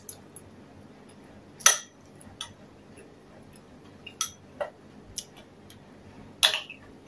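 Close-up eating sounds: mouth clicks and smacks from chewing rice, and a metal spoon tapping and scraping in a ceramic bowl. A handful of separate sharp clicks over a quiet background, the loudest about two seconds in and again near the end.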